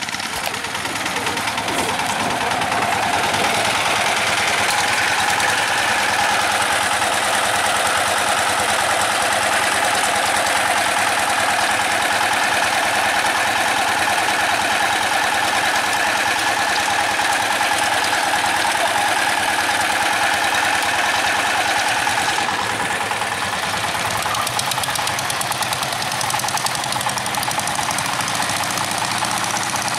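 Single-cylinder diesel engines of two-wheel walking tractors running with a loud, steady clatter. About 22 seconds in, the sound dips briefly, then carries on.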